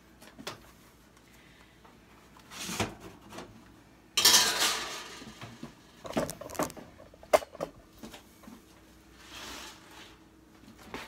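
Metal bakeware handled on a kitchen counter and at the oven: a loud clatter about four seconds in, then scattered knocks and clinks, as a cookie sheet is set under a casserole dish.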